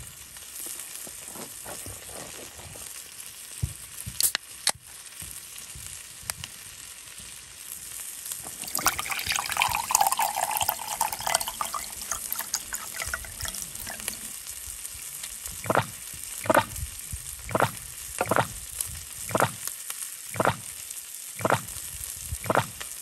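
Thick-cut bacon sizzling steadily in an iron frying pan on a camp stove. About two-thirds of the way in, a run of about nine gulps, roughly one every 0.8 s: an added beer-drinking sound effect.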